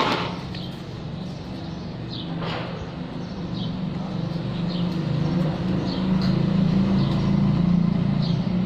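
A low, steady engine hum that grows gradually louder, with faint short high chirps recurring every half second or so.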